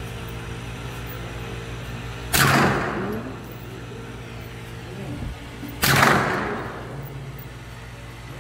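Two shots from a CBC 7022 semi-automatic .22 LR carbine, about three and a half seconds apart, each followed by a short echo.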